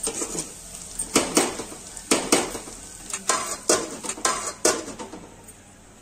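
A metal ladle clanking and scraping against an aluminium pot while masala is stirred, then the aluminium lid being set on the pot: a run of about eight sharp metal clanks.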